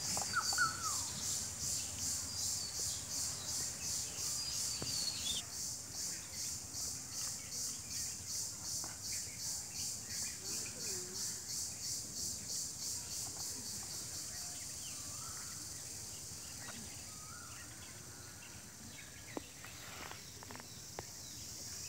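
Insects chirping high-pitched in a steady pulsing rhythm, about three pulses a second, which smooths into a fainter, steadier trill after about fourteen seconds. A few short bird chirps come in the first seconds, and a few light clicks from handling come near the end.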